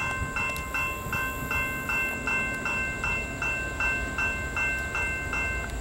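Railroad grade-crossing warning bell ringing steadily, nearly three strokes a second, stopping near the end.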